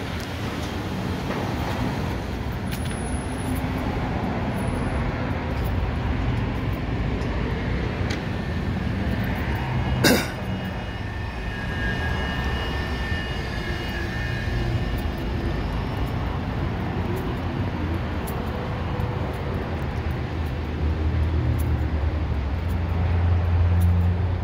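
Cars running and driving out of a car wash lane, a steady low rumble of engines and tyres. A sharp click comes about ten seconds in, and a vehicle grows louder near the end.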